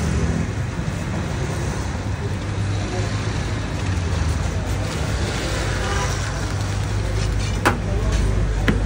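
Two sharp metal clanks near the end, about a second apart, as a spit of roasted chickens is set down on the stainless-steel tray of a rotisserie oven, over a steady low rumble.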